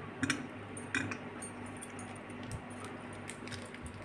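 Squares of Cadbury Dairy Milk chocolate snapped off the bar and dropped into a stainless steel bowl: a few sharp clicks in the first second, then fainter scattered ticks, over a low steady hum.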